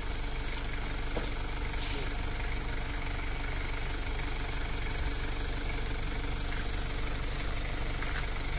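Kubota farm tractor's diesel engine idling steadily.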